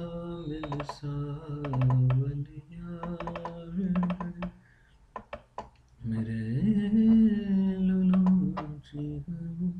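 A man humming a slow tune to himself in long held notes, with a short pause about halfway through. Sharp computer clicks are scattered through it.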